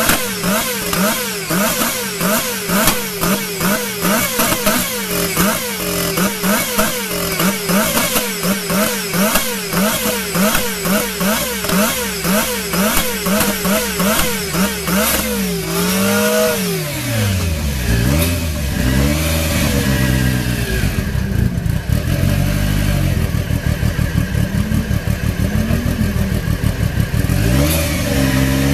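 Lancia Delta S4 Group B car's twin-charged 1.8-litre four-cylinder engine being free-revved while stationary: quick, regular throttle blips about twice a second for roughly the first fifteen seconds. Then one big rev up and down, followed by slower, deeper rises and falls in engine speed.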